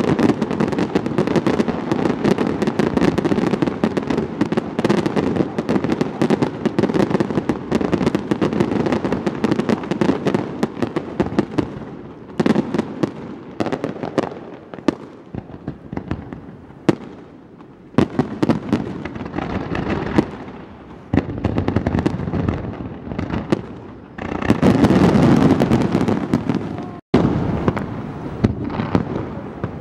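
Fireworks display: a dense barrage of rapid bangs and crackling for the first dozen seconds, then sparser single reports with quieter lulls, and another dense volley near the end.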